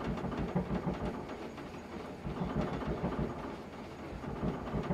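Kanna plane blade being rubbed back and forth on a wet 12000-grit Naniwa whetstone, a rhythmic scrape of steel on stone with each stroke. This is the fine polishing of the edge on the finishing stone.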